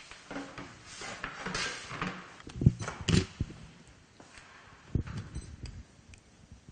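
Handling sounds at a kebab skewering machine's meat hopper as minced meat is loaded: some rustling, then two sharp knocks close together about three seconds in, and a softer thump a couple of seconds later.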